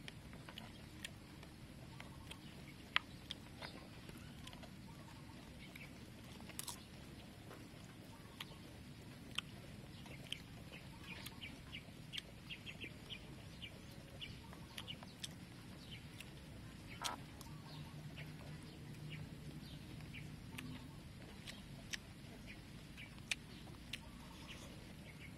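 Eating sounds: a metal spoon clicking and scraping on a plate as food is scooped, with soft chewing and mouth smacking in between. Faint throughout, a dense run of small ticks in the middle and a handful of sharper clicks.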